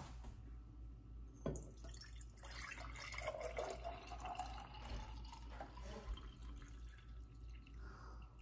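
Elderberry syrup pouring from a saucepan into a glass mason jar: a trickling, dripping pour with a tone that rises slowly as the jar fills. A single knock about a second and a half in.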